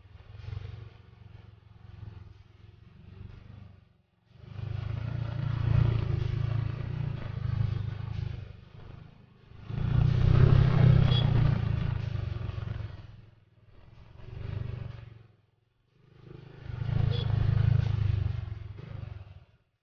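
Honda XRM underbone motorcycle engine running as it rides over a ribbed concrete footpath, with rumble and clatter from the bumpy surface. The sound comes in several sections that cut off abruptly to near silence and start again.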